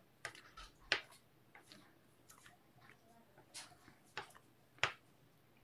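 Metal bench scraper chopping down through soft dough and knocking on the countertop: about five faint, separate taps with quiet in between.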